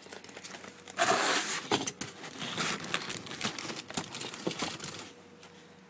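Cardboard box and plastic packaging rustling and crinkling as a car amplifier is handled and lifted out. There is a loud rustle about a second in, then scattered crinkles and light knocks, dying away about five seconds in.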